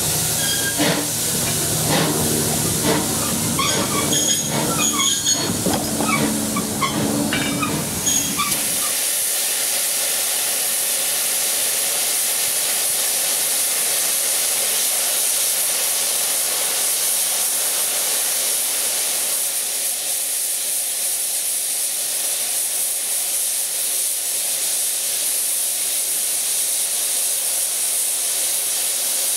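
Small industrial tank steam locomotive clanking and hissing at close range. About nine seconds in, this gives way to a loud, steady hiss of steam blowing off from the boiler.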